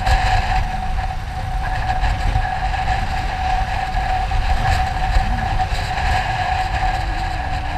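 Motorcycle underway: wind rumbling on the microphone over a steady, unchanging whine.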